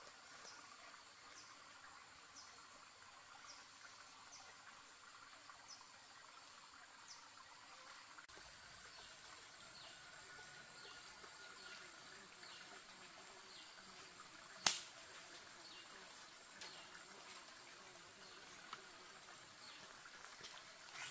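Faint outdoor ambience of insect and bird calls: short, high, repeated chirps over a thin steady drone. A single sharp snap or click about two-thirds of the way through stands out as the loudest sound.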